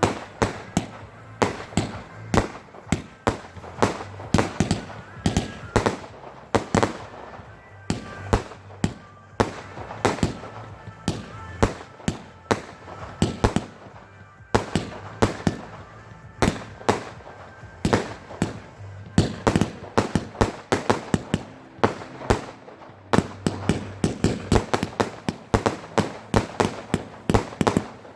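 Fireworks display: aerial shells bursting one after another, many sharp bangs a few tenths of a second to a second apart, closing in a rapid volley of bangs over the last few seconds.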